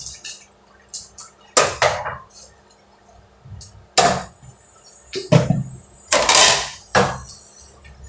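Dishes being washed by hand: plates and utensils clatter against each other several times, with a longer rush of water about six seconds in.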